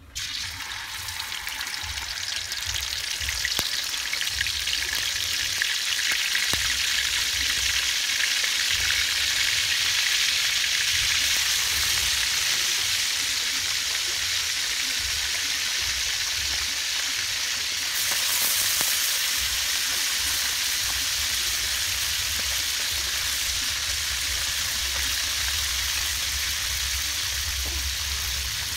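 Fish frying in hot oil: a loud, steady sizzle that starts suddenly and builds over the first few seconds before holding even.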